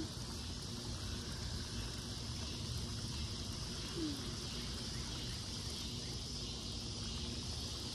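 Evening outdoor ambience: a steady chorus of insects with a low background rumble.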